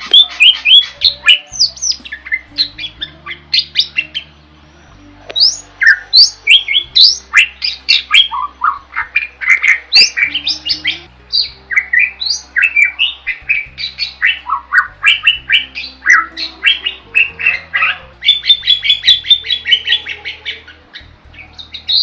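Caged pied starling (jalak) singing a fast, continuous chattering song of short whistled and squawky notes, with a brief pause about four seconds in.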